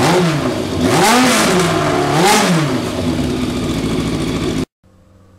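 Motorcycle engine revved in three blips, its pitch rising and falling with each, then running more steadily until it cuts off suddenly near the end.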